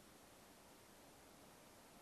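Near silence: a faint, steady hiss with no distinct sound events.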